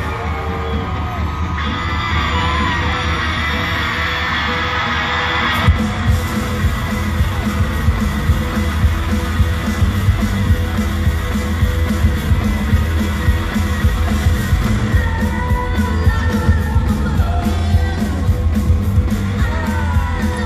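Arena crowd yelling and cheering over a quieter intro, then about six seconds in a full live rock band crashes in with a steady drum beat, heavy bass and electric guitars.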